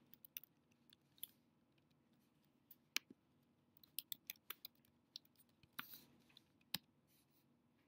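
Faint, scattered keystrokes on a computer keyboard, with a quick run of them about four seconds in and another about six seconds in.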